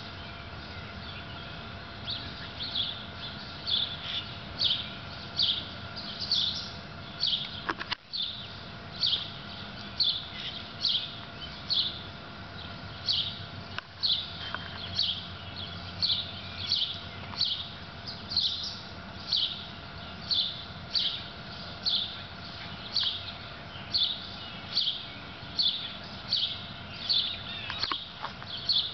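A bird chirping over and over, one short high call about every two-thirds of a second, starting a couple of seconds in, over a faint steady hum.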